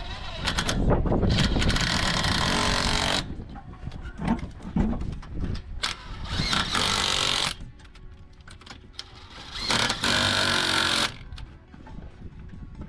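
Power impact wrench running lug nuts onto a RAV4's spare wheel in three bursts of one to two seconds each, with quieter clattering between them.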